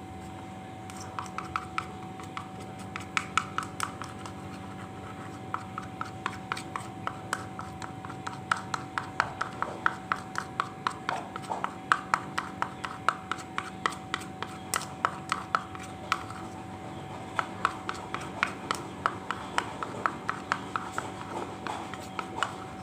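A spoon stirring kencur juice and honey in a small container, clinking against its side in quick irregular runs of clicks, about three or four a second, with a few short pauses.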